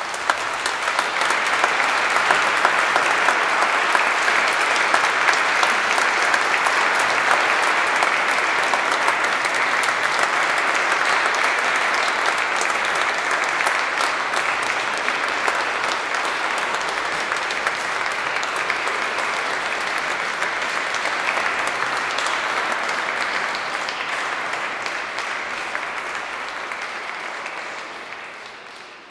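Audience applauding: the clapping builds up within the first second, holds steady, and fades out near the end.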